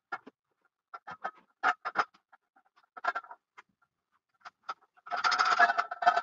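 Clicks and knocks of a metal telescope mount being handled on its tripod head, then a squeaky scraping for about two seconds near the end.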